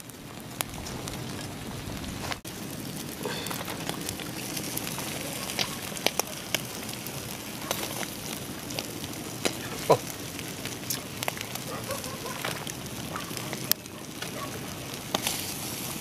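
Small open fire of dry twigs and driftwood crackling, with irregular sharp pops over a steady hiss, as whole fish grill on it.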